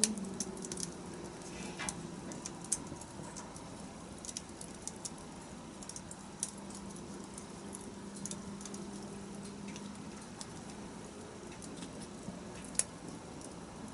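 Wood fire crackling, with scattered sharp pops over a faint steady hiss. There are louder pops about three seconds in and near the end, and a faint low hum throughout.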